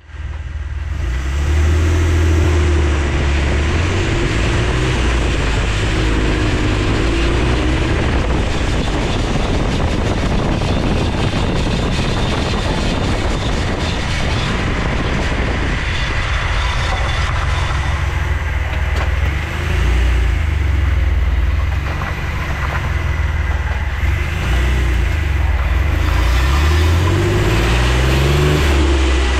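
Jeep Wrangler JK under way: its engine and drivetrain run with steady road noise, and the engine note climbs near the end as it picks up speed. The owner is listening for a clicking from the front driveshaft.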